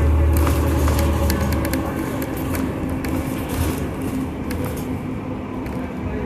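Interior noise of a moving city transit bus: the engine and drivetrain drone low, strongest for the first couple of seconds and then easing off, under steady whining tones and frequent short rattles and clicks.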